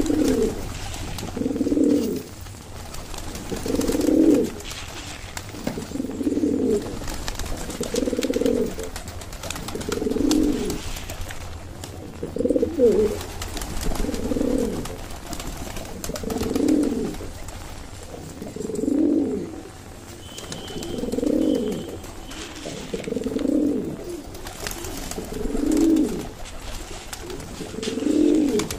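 Domestic pigeons cooing. A low coo repeats steadily about every two seconds.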